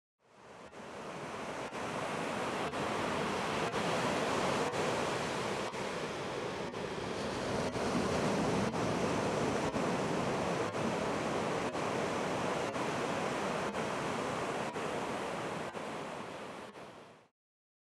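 Ocean surf washing onto a sandy beach: a steady rushing that fades in at the start and cuts off abruptly near the end.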